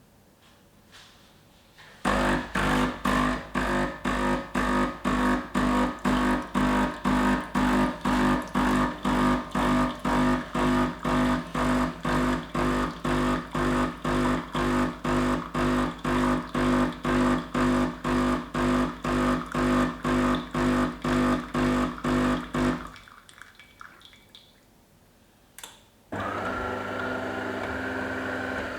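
De'Longhi Magnifica bean-to-cup coffee machine's pump buzzing in rapid pulses, about two a second, for some twenty seconds as the machine runs its first start-up rinse cycle. After a short pause, a steady hum starts near the end.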